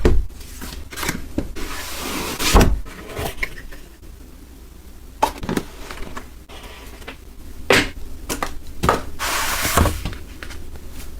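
Keyboard box and its packaging being handled and opened by hand: scattered knocks and taps between stretches of rubbing and rustling.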